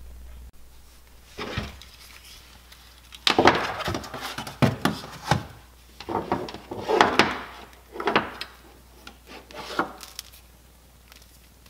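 Handling noise: the plastic Ring Alarm base station being turned over and slid on a wooden shelf while its power cable is moved about, giving irregular scrapes, rubs and knocks that start about three seconds in and die away near the end.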